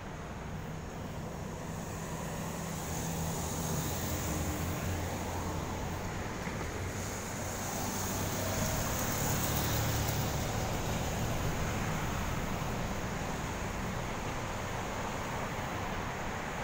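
Road traffic noise: a steady hum of vehicles that swells toward the middle as one passes close by, then eases off.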